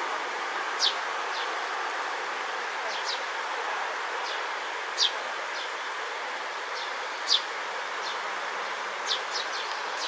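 A juvenile Eurasian tree sparrow gives short, high chirps, each dropping in pitch. They come scattered one to two seconds apart, four of them louder than the rest, over a steady background hiss.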